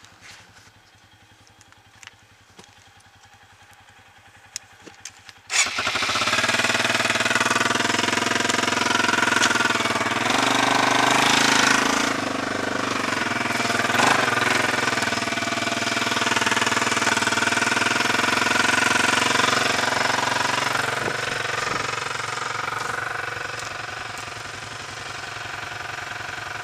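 Single-cylinder four-stroke engine of a 2003 Suzuki Eiger 400 ATV under way. It is faint for the first few seconds, then comes in suddenly loud about six seconds in, its note rising and falling with the throttle, and it eases lower near the end.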